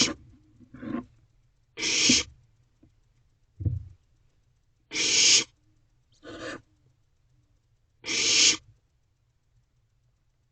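Barn owlets hissing their begging calls: harsh hisses, each under a second long, at irregular intervals of one to three seconds, some louder than others.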